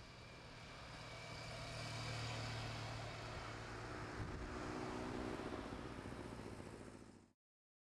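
Motor vehicle engine running with wind and road noise, heard from a vehicle driving alongside racing cyclists. The noise swells over the first couple of seconds, holds, then cuts off abruptly near the end.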